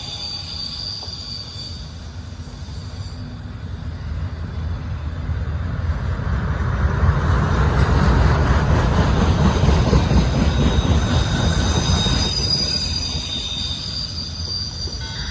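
Freight train cars rolling past: a steady low rumble of steel wheels on rail, with thin, high-pitched wheel squeal near the start and again in the second half. The rumble grows louder through the middle and eases off toward the end.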